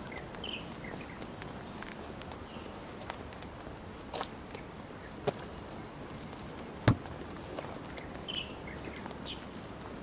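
Footsteps of a walker on an asphalt road, faint scattered ticks over a steady outdoor hiss, with one sharper knock about seven seconds in. A few short, faint bird chirps sound now and then.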